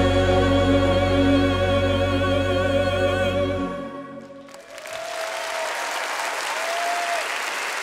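The final held chord of a classical vocal duet with choir and orchestra, voices singing with vibrato over a deep sustained bass, stopping about three and a half seconds in. After a brief hush the audience breaks into applause, with a few short calls over it.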